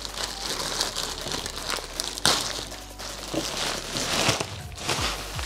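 Clear plastic protective bag crinkling and rustling as it is pulled up and off a boxed 3D printer, with one sharp crackle about two seconds in.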